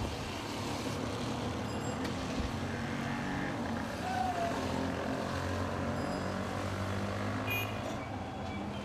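Street traffic: a steady rumble of vehicle engines, with a brief short chirp about four seconds in.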